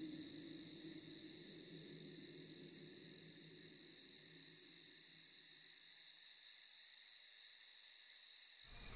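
Crickets chirping in a steady, unbroken high trill, with a faint low hum underneath that dies away near the end.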